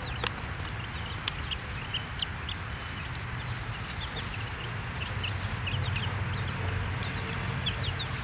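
Baby chicks peeping in many short, high cheeps scattered throughout, over a steady low rumble, with a few sharp clicks.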